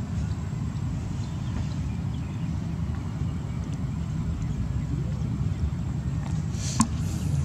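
Steady low background rumble, with one sharp click near the end.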